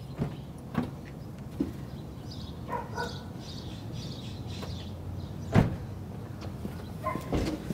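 Scattered clicks and knocks of handling around a Toyota Sienna minivan, over a low steady hum. The loudest is one sharp thump about five and a half seconds in, with a few more knocks near the end.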